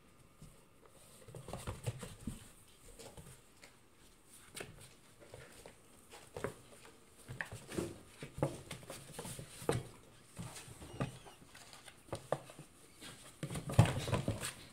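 Cats playing in a cardboard box: irregular scratches, taps and thumps on the cardboard, with a louder flurry near the end.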